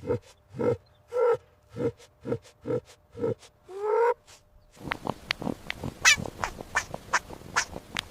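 A series of about eight short, pitched animal calls, the last one rising in pitch. About a second later comes a dense run of sharp clicks and high chirps.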